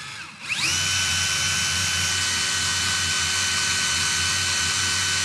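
DeWalt XR cordless drill spinning a LEGO boxer engine model, its plastic pistons and crankshaft whirring. About half a second in, the whine rises quickly in pitch, then holds at a steady high whine.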